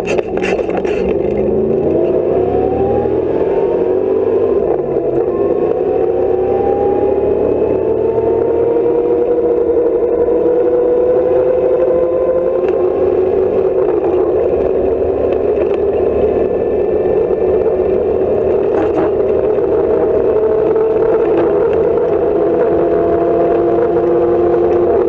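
Off-road competition car's engine heard from inside the stripped, roll-caged cabin, pitch rising over the first few seconds as it accelerates and then held at steady high revs on a dirt track. A few sharp knocks and rattles from the bare body and gear over the rough ground.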